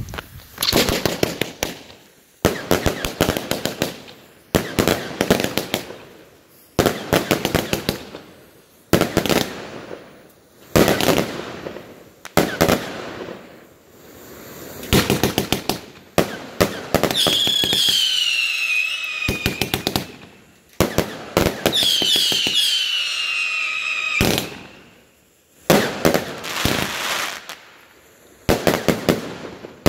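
Heron 'Burning Wolf' compound firework cake (144 shots, 25 mm calibre) firing: volleys of rapid shots and crackling bangs about every two seconds, each dying away. Twice, past the middle, several whistles fall in pitch together for about three seconds each.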